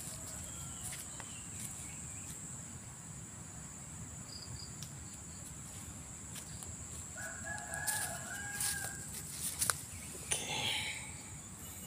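A rooster crows once, about seven seconds in, one call lasting over a second. Behind it runs a steady high insect drone, with a few light clicks.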